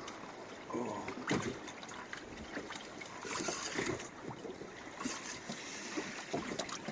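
Water lapping and slapping against a small fishing boat's hull, with scattered light knocks and clicks.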